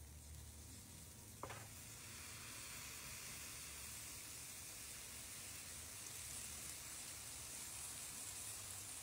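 Basting sauce sizzling on chicken drumsticks grilling over charcoal: a short click about a second and a half in, then a steady sizzle that holds on.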